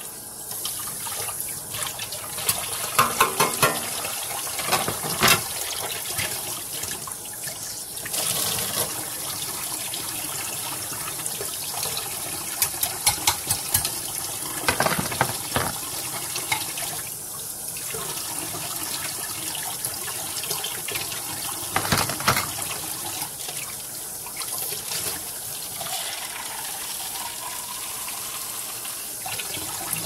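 Tap water running steadily into a sink while dishes are washed, with short runs of clinking and knocking from dishes every few seconds.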